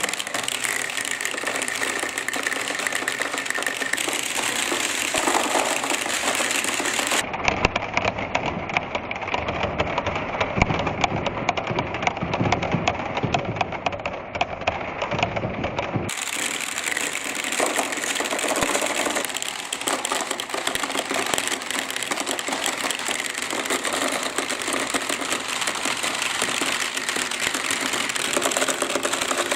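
Many small balls rolling and clattering down a marble-run track in a dense, continuous rattle of clicks. From about seven to sixteen seconds in, the rattle turns duller with more low rumble.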